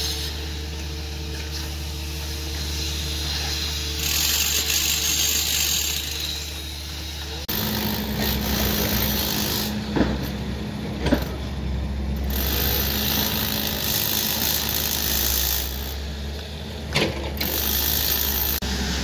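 Steady machinery running on a construction site, a low hum that changes abruptly about seven seconds in, with a few sharp knocks later on.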